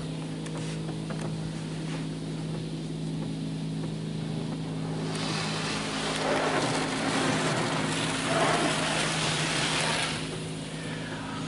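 Touchless automatic car wash (PDQ LaserWash 4000) heard from inside the car's cabin: a steady low hum, and from about five seconds in until shortly before the end, the hiss of spray coming down over the car as the wash applies presoak foam.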